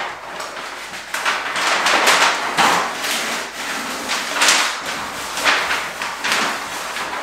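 Peel-and-stick wallpaper rustling as the strip is worked down the wall by hand, with its backing pulled away, in a series of several scraping swells.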